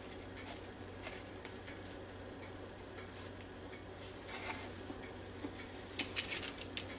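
Quiet room with a steady low hum and scattered faint clicks; in the last second a few soft taps and rustles as a burger is lifted off a paper plate.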